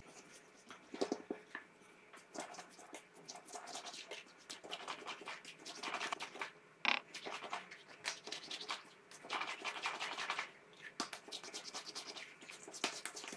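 Hands kneading soft yeast dough, first in a glass bowl and then on a silicone baking mat: faint, irregular squishing, rubbing and light taps.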